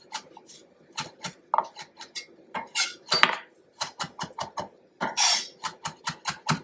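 Chef's knife chopping parsley on a wooden cutting board: quick, uneven knocks of the blade striking the wood, with a brief hissing scrape about five seconds in.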